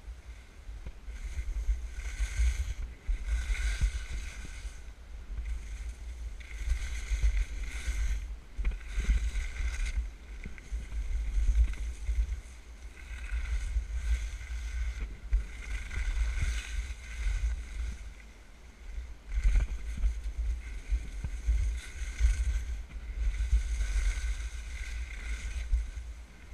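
Skis scraping and swishing over piste snow through a series of turns, a burst of hiss every few seconds, over a heavy, steady rumble of wind buffeting the microphone.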